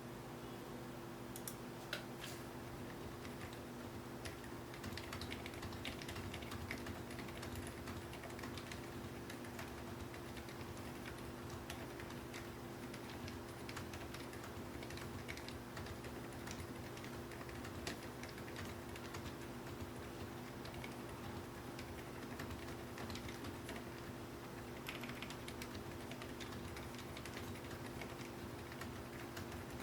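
Continuous typing on a FLESPORTS MK870 mechanical keyboard with lubed GamaKay Phoenix silent linear switches and double-shot PBT keycaps: a steady stream of soft, irregular keystrokes.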